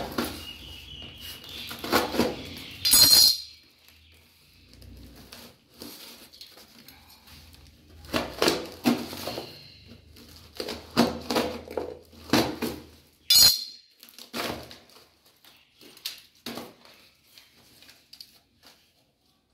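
A blade cutting and tearing through a tape-wrapped cardboard parcel: irregular bursts of scraping and ripping, with two sharp clacks, about three seconds in and again about thirteen seconds in.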